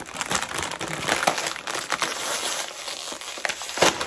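Lay's potato chip bag crinkling and crackling as it is pulled open by hand, with one sharp, loud crackle near the end.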